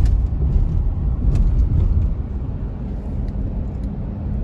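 Steady low rumble of road and wind noise from a moving car, heard from inside the car.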